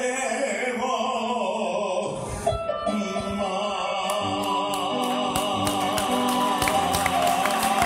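Tango orquesta típica with bandoneón and violins playing the closing bars of the tango: long wavering notes, then from about two and a half seconds in held chords over short regular accents.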